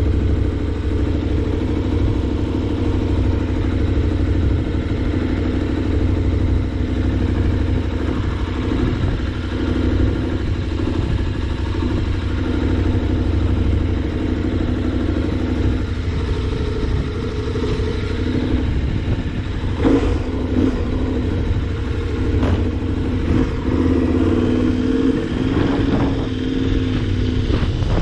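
Wind rumbling on the microphone over the steady hum of a running vehicle engine, with a few sharp knocks about twenty seconds in and the engine's pitch shifting near the end.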